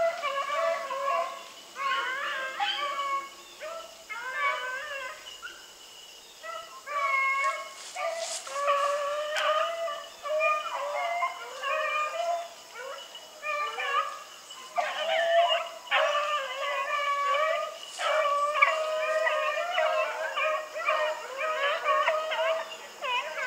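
A pack of beagles baying on a running chase, several dogs giving voice at once in overlapping howls. The cry thins out a few seconds in, then picks up again as the pack comes on.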